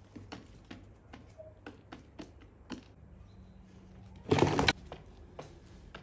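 Pigeons pecking at bait on a hard tiled floor: a run of irregular sharp taps, two to four a second. One loud, brief rush of noise lasting about half a second comes a little after four seconds in.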